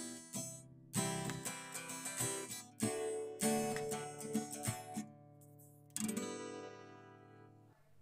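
Background music on an acoustic guitar: a few strummed chords, each left to ring and fade before the next.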